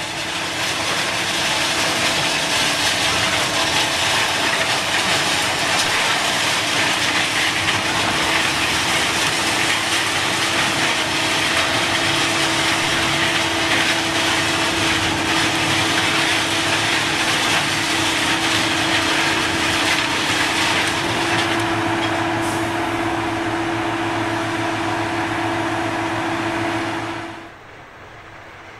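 Ballast regulator working along the track with its rotating broom sweeping ballast stones: a steady engine note under a loud, continuous hiss of brushed rock. The sound drops away abruptly near the end.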